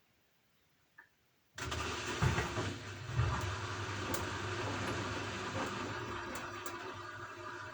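Gorenje washing machine starting a new stage of its cycle: a click, then about a second and a half in a steady rushing noise with a low hum sets in suddenly, with a few knocks near its start.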